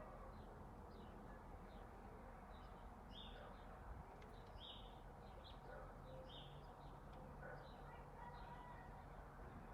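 Birds chirping faintly: a steady string of short, high chirps, a few of them louder, over a low background hum.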